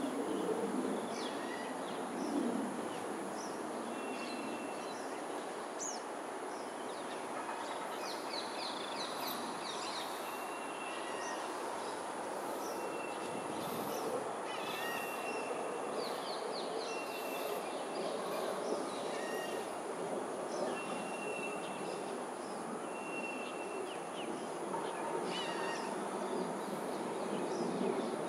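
Outdoor ambience: a steady low rumble, with birds calling over it, a short clear note repeated about every two seconds and scattered bursts of quick high chirps, and a thin, steady, high insect buzz.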